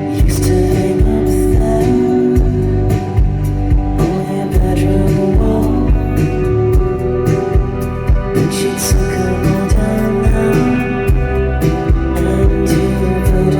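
A band playing a slow song live, with singing and a steady, even drum beat under sustained guitar and bass tones.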